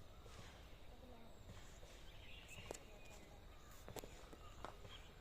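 Faint outdoor ambience with a few distant bird chirps and several faint sharp clicks.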